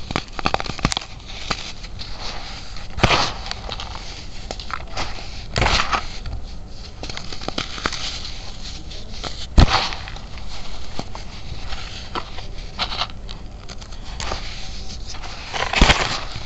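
Baking soda being squeezed and crushed by hand, powder and packed lumps: a dense, continuous fine crackle and crunch, with a few louder crunches as the fists close.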